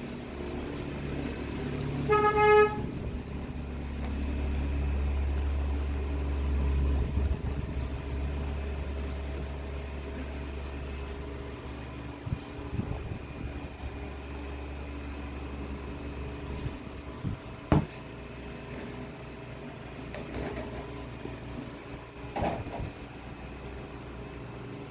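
A short horn toot about two seconds in, followed by a low rumble that swells and fades over the next few seconds. A few small clicks and knocks come later.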